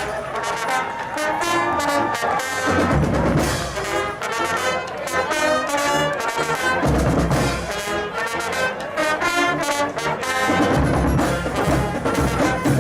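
Marching brass band playing loud and continuously, trombones and trumpets over a steady drum beat.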